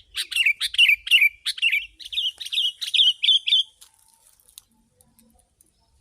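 Sooty-headed bulbul (kutilang) singing loudly in a rapid run of short, downward-slurred chirps, about four a second, that breaks off a little past halfway through.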